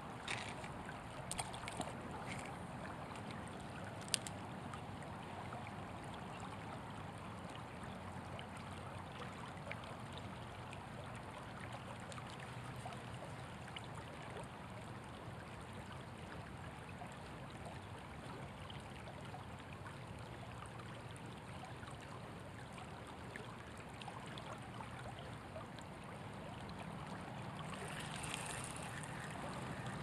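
Shallow creek running steadily over a rippled gravel bed, an even rush of water, with a few sharp clicks in the first five seconds.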